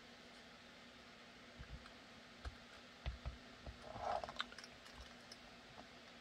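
Faint clicks and light knocks as a contour gauge is handled and pressed across a formed Kydex holster, with a short rattle of the gauge's pins about four seconds in.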